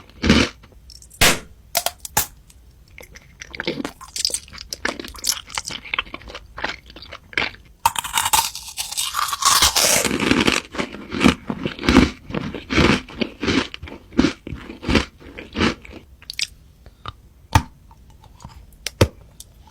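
Close-miked eating: crunchy food being bitten and chewed in a run of crisp crunches. About eight seconds in there is a louder, denser stretch of crunching lasting a couple of seconds, then steady chewing at about one to two crunches a second.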